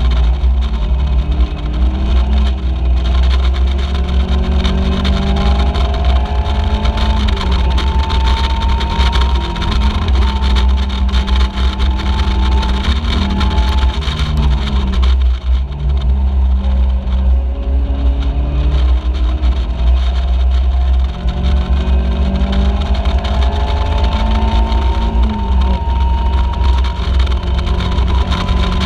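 Caterham Seven race car's engine heard onboard at racing speed, its pitch rising repeatedly as it accelerates through the gears, dropping as it eases off for a corner about halfway through, then climbing again. Heavy wind rumble on the microphone of the open car runs underneath.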